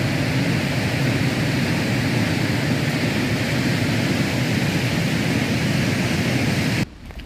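Steady rush of a waterfall on the Little Qualicum River tumbling through its rocky gorge. It cuts off suddenly near the end.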